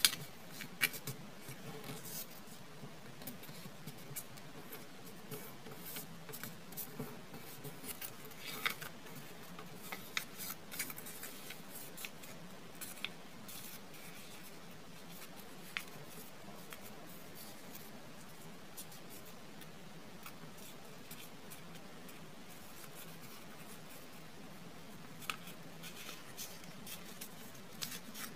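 Origami paper being folded and creased by hand: scattered crisp paper crackles and small clicks, with a quieter stretch past the middle.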